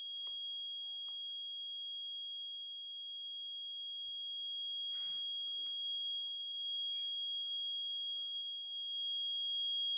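Small battery-powered buzzer sounding one steady, unbroken high-pitched tone. It is held on because the heated bimetallic strip inside a tube-light starter has bent to close the circuit, and it keeps sounding while the strip stays hot.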